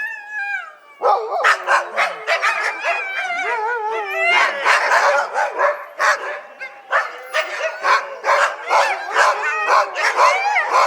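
Several dogs barking and yipping over one another, mixed with high whines. A single whine opens it, and the dense barking chorus starts about a second in.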